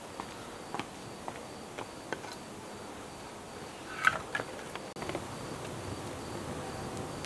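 A cricket chirping in a steady, even pulse, with scattered faint clicks and one short, louder scrape about four seconds in.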